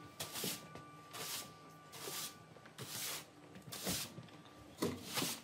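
Long-handled garden tool scraping and digging at the ground in regular strokes, about one a second, with faint held music tones underneath.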